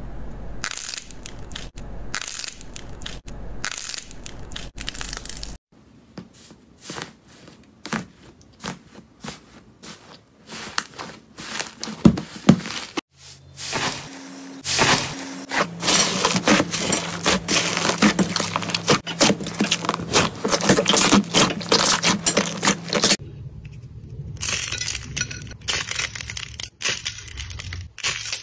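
Close-up ASMR sounds of hands squeezing and pressing slime and crumbling dry clay: dense crackling and crunching. The sound changes as separate clips cut in, about every six to ten seconds, and is loudest in the middle stretch, where a hand presses into foamy slime.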